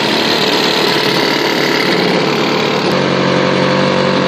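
British Seagull Century outboard, a single-cylinder two-stroke, running steadily, its note changing about three seconds in.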